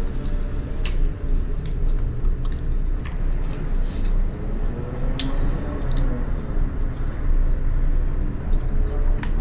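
Close-miked chewing of food: wet, squishy mouth sounds with scattered sharp clicks and smacks.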